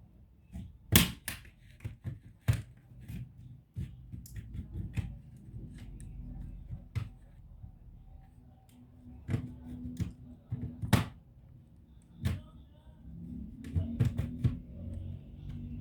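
Laptop parts and tools being handled: irregular clicks and light knocks, the loudest about a second in and again near eleven seconds in.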